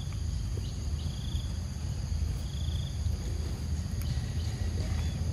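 Outdoor ambience: a steady low rumble under a constant high insect drone, with two short high chirping trills, about a second and three seconds in.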